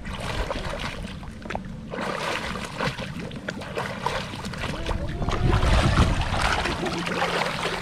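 Pool water splashing and sloshing from a child's swimming strokes, growing louder as he comes close, loudest a little over halfway through.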